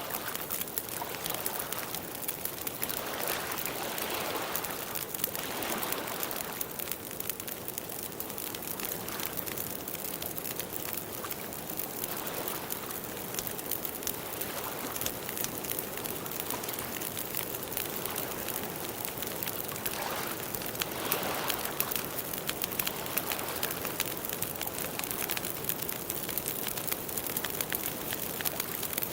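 Campfire of burning wood crackling steadily with many small pops, with a few slow swells of soft rushing noise.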